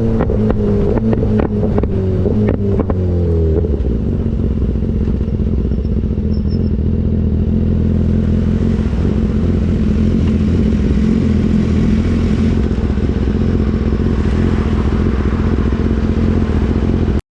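BMW S1000RR inline-four through an Austin Racing GP1R full-Inconel exhaust. In the first few seconds the revs fall with a rapid string of pops and crackles from the exhaust, then the engine settles into a steady, even note.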